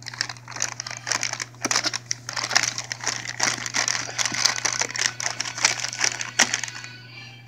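Plastic bag crinkling and rustling with sharp little clicks, handled while a zip tie around it is cut with scissors.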